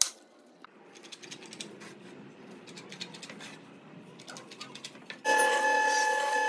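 Faint taps and scratches of a pen and a wooden straightedge on pine boards, then near the end a belt-driven jointer starts up loud, running with a steady whine.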